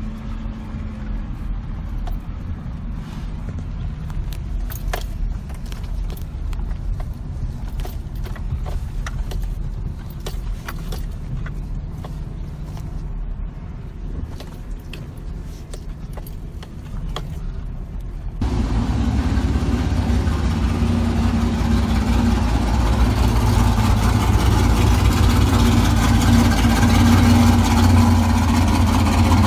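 Vehicle driving slowly over a bumpy dirt track, heard from inside the cab: low engine and road rumble with scattered clicks and rattles over the bumps. About two-thirds of the way in it changes abruptly to a louder, steady engine-like running sound with a low hum.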